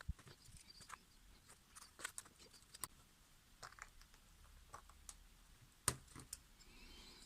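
Scattered light clicks and taps of small hard objects being handled, with one sharper click about six seconds in.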